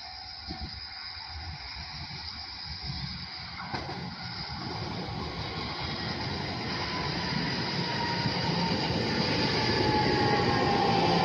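Shinano Railway SR1 series electric train approaching and pulling into the platform. Its rumble grows steadily louder, and in the second half a whine slides down in pitch as the train slows.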